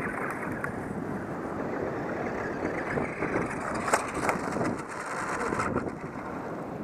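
Radio Shack RC car running over grass and dirt, its electric motor and tyres making a steady rough noise. About four seconds in, a couple of sharp knocks sound as the car flips and crashes upside down.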